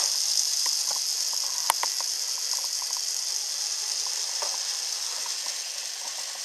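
Bachmann model trolley running on its track: a steady high hiss from its small electric motor and wheels on the rails, with scattered light clicks and one sharper click a little under two seconds in.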